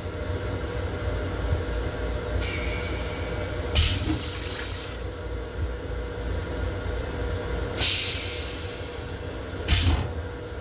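Steady low rumble of a Long Island Rail Road M7 electric railcar, heard from inside its restroom. Four short bursts of hissing come over it; the loudest, about four seconds in and just before the end, each start with a knock.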